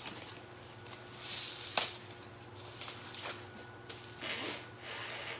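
Rustling and crinkling of packaging being handled at the table, in short bursts, with one sharp click about two seconds in.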